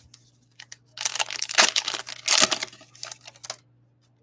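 Foil wrapper of a Topps Holiday baseball card pack being torn open and crinkled by hand: a dense crackling rustle lasting about two and a half seconds, starting about a second in after a few faint ticks.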